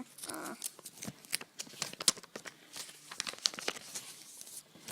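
Plastic minifigure blind-pack wrapper being handled, crinkling and crackling in quick irregular bursts.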